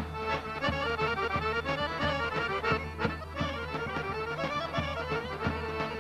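Traditional Greek folk dance music of Eastern Rumelia (Thrace): a fast melody of quick notes over a steady low drone, with a beat about every two-thirds of a second.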